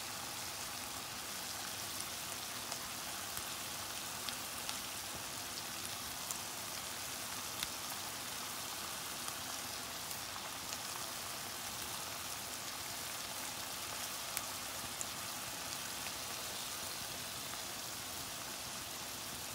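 Chicken pieces with carrots and onions sizzling steadily in a stainless steel pot, with scattered small pops, as the water cooked out of the chicken evaporates.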